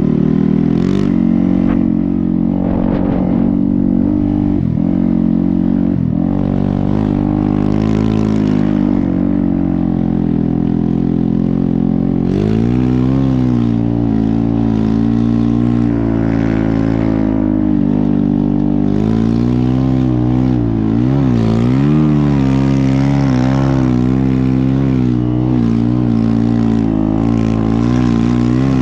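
Engine of a dirt bike converted to a snow bike with a Yeti track kit, running steadily under throttle. Its pitch climbs about halfway through, then swoops up and down a few times around three-quarters of the way in as the throttle is worked.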